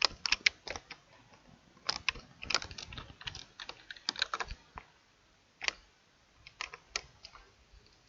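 Computer keyboard typing: irregular bursts of key clicks and keypresses, with a short pause in the middle.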